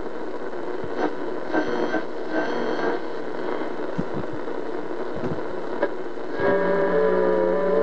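Static hiss from a Realistic DX-66 portable radio's speaker as its tuning knob is turned between stations. Whistling tones come and go in the static: briefly about two seconds in, and a stronger cluster of held, slightly wavering tones near the end.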